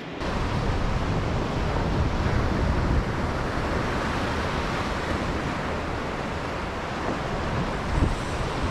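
Small waves breaking and washing up on a sandy beach, with wind buffeting the microphone as a steady low rumble.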